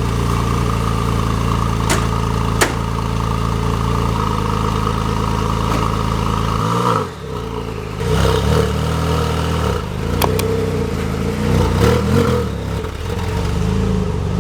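Porsche 996 Turbo's twin-turbo 3.6-litre flat-six idling steadily, then about seven seconds in the revs drop and rise and fall several times as the car pulls away and accelerates.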